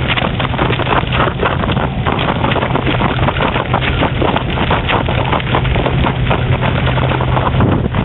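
A recumbent bicycle's tyres crunching and rattling over loose gravel at speed downhill, with wind buffeting the microphone and a steady low hum underneath.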